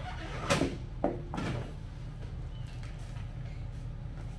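Large truck tires dropped from a pickup bed onto the concrete, landing with heavy thuds: the loudest about half a second in and two more close after it.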